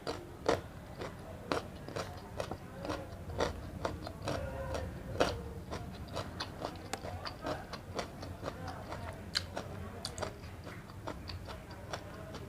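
A person chewing food close to the microphone, with irregular wet smacks and clicks of the mouth.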